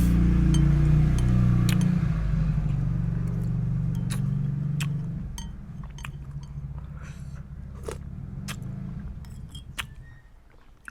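A motor engine running close by with a steady low hum, dying away over the second half as it moves off, with scattered light clinks like a spoon against a bowl.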